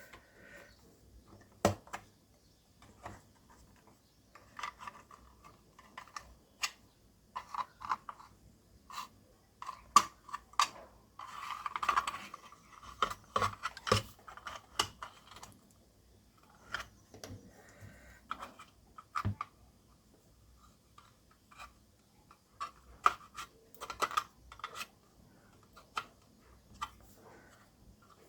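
Plastic casing of an LED Christmas star being taken apart by hand: irregular small clicks, taps and scraping of plastic parts and tools, with a denser patch of scraping about twelve seconds in.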